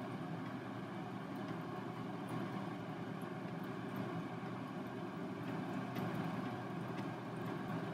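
Steady low mechanical drone, like a motor running, with a few faint light ticks over it.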